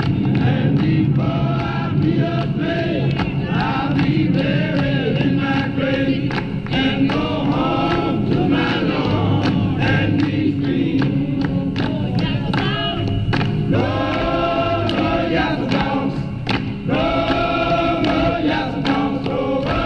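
Archival 1968 open-air field recording of a group of people singing together.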